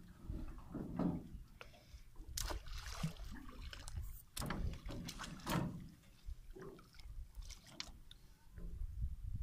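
Water sloshing and splashing around a person wading chest-deep, with irregular knocks and clatters of a wire-mesh fish trap's frame against the side of a boat as the trap is lifted off and lowered into the water.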